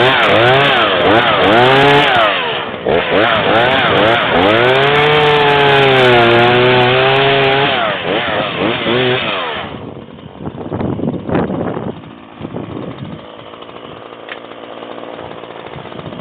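Chainsaw engine revving in quick bursts, then held steadier and lower as it bogs into the wood while cutting a flat spot in a tree trunk. It winds down and stops about ten seconds in, followed by a few knocks.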